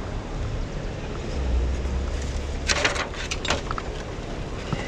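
A ladder being handled against a concrete ditch wall: a short cluster of knocks and rattles about three seconds in. Wind rumbles on the microphone throughout.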